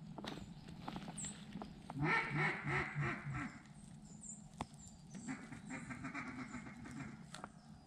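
A run of about five loud, quick duck quacks, followed a couple of seconds later by a second, quieter and longer run of quacks.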